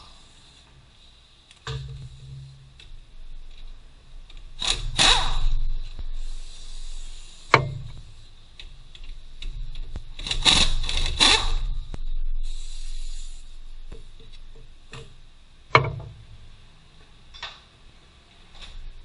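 Mechanics' tool work on a car's front hub during a wheel bearing replacement. Two long, loud bursts of rapid tool rattle are broken up by scraping and two sharp metal knocks.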